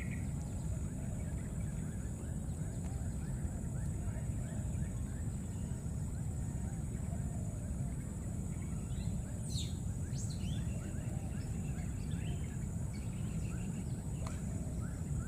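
Outdoor ambience: a steady low rumble with a constant high hiss over it, and a few short high chirps about ten seconds in.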